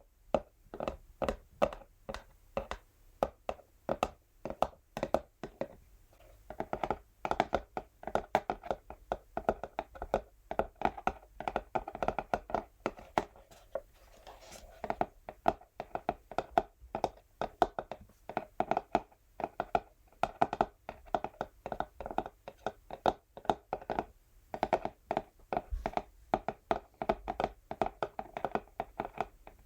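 Natural fingernails tapping and scratching on an empty textured cardboard box, in quick runs of crisp taps several times a second.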